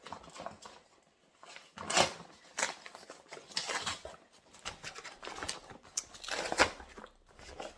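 Shopping bag and packaging being handled and opened by hand: irregular rustling and crinkling, with louder bursts about two seconds in and again toward the end.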